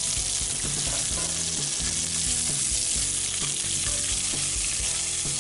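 Corn kernels and bacon sizzling and popping in a hot cast-iron Dutch oven, with crackles and scrapes as they are stirred: the corn is browning in the bacon fat.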